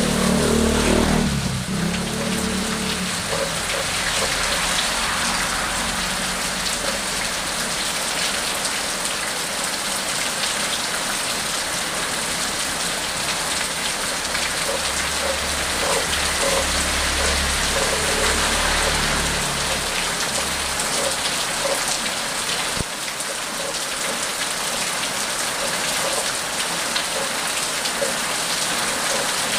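Heavy rain falling steadily onto a paved street and puddles. A car's engine and tyres pass in the first couple of seconds, and a low rumble comes through again midway.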